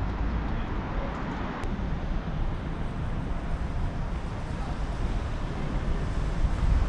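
Steady outdoor street ambience: a low rumble of background noise with no distinct event standing out.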